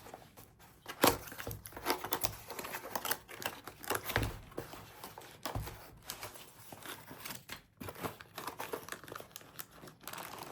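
Plastic packaging crinkling and tearing as a product is unwrapped by hand, with irregular crackles throughout, a sharp knock about a second in and a couple of dull thumps later.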